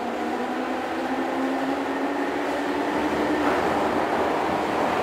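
Keihan 2600-series electric train heard from inside the passenger car as it gathers speed. The traction motor and gear whine rises in pitch over the rush of wheels on rail. About three and a half seconds in, the whine fades and a louder, even rumble of the running gear takes over.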